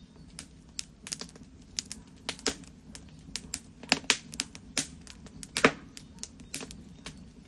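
A fire crackling: irregular sharp pops and snaps, several a second at times, over a steady low rumble, with the loudest pop a little past the middle.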